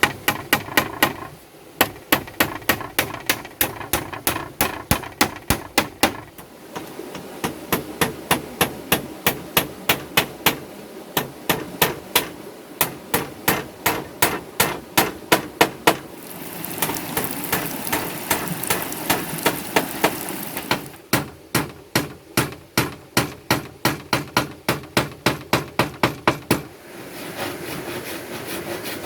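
A hand tool striking wood over and over, about four sharp blows a second, in runs of several seconds with short pauses. A stretch of steady scraping comes in about two-thirds of the way through.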